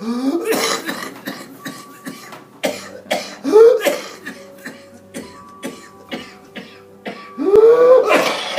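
Paroxysms of whooping cough (pertussis): runs of rapid, violent coughs, each broken by a rising, high-pitched whooping breath in, heard three times.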